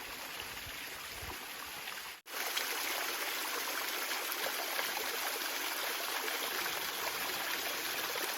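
Stream water running steadily. It drops out for an instant about two seconds in, then carries on a little louder.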